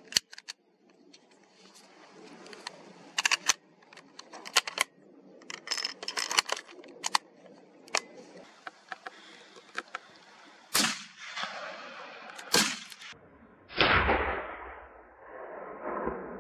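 Metal cartridges clicking one at a time into a rifle's detachable box magazine, followed by two louder metallic clacks as the rifle is handled. Near the end comes a loud sudden bang with a fading tail.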